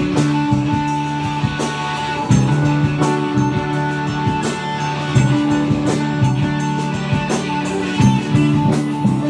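Two electric guitars playing live through amplifiers in an instrumental rock passage, with held notes over a low riff and drums keeping the beat.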